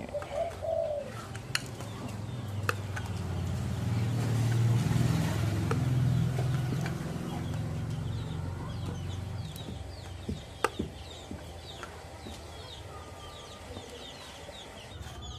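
Chickens clucking in the background, with a few sharp metallic clicks from handling a racing motorcycle muffler's steel canister; the loudest click comes a little past the middle. A low rumble swells over several seconds and fades.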